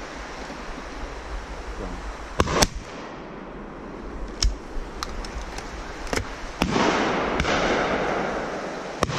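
Shotgun shots: about seven sharp reports scattered through, the loudest a close pair about two and a half seconds in, the rest fainter. A loud rushing noise comes in about two-thirds of the way through.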